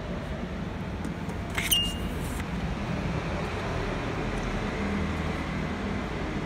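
Steady low rumble of a train station hall's background noise, with one short sharp click and a brief high beep about a second and a half in.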